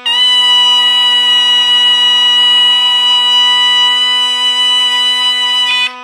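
Two zurnas playing a bozlak: one holds a steady low drone while the other comes in suddenly with a loud, high note held for nearly six seconds, then breaks off into a few short notes near the end.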